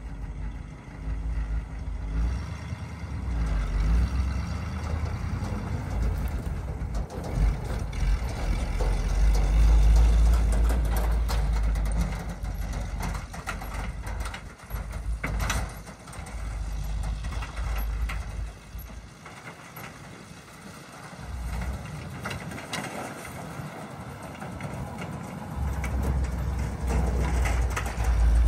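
Gasoline engine of a 1969 International Loadstar 1600 grain truck running as the truck drives across a stubble field, a low, uneven rumble that fades as it moves off and grows loud again near the end as it comes back close.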